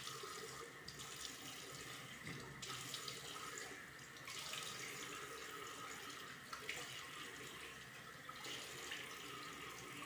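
Water tap running into a bathroom sink as hair is wetted under it: a steady, faint rush of water with a few small splashes.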